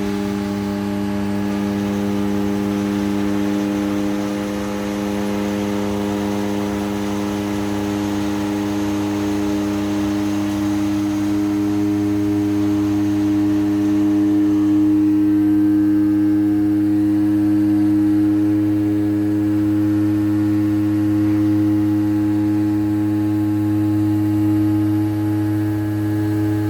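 Steady machine hum with a strong low pitch that holds without change throughout, dropping slightly right at the end.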